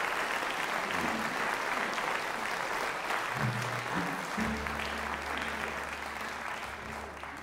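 Audience applauding, fading away near the end. Low sustained notes from an instrument sound underneath from about halfway through.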